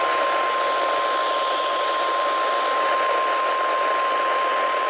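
NOAA Weather Radio's 1050 Hz Warning Alarm Tone: one steady, unbroken beep over heavy radio static hiss. It signals that a severe weather warning is about to be broadcast.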